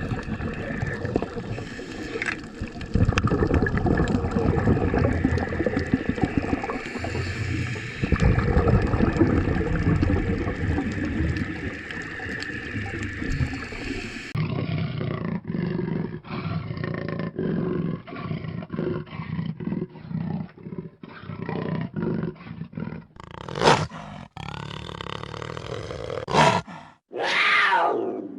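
Large animals roaring and growling across several spliced clips, with a clear cut about halfway through. Several sharp calls that swoop up and down in pitch come near the end.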